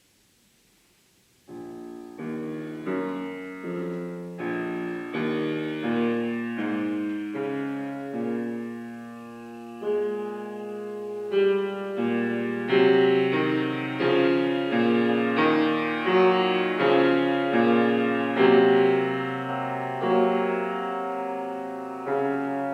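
Piano playing a slow, chordal passage, beginning about a second and a half in after near silence and growing louder, with each chord struck and left to ring.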